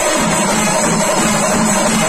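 Kerala chendamelam: massed chenda drums with cymbals playing a loud, dense, unbroken rhythm.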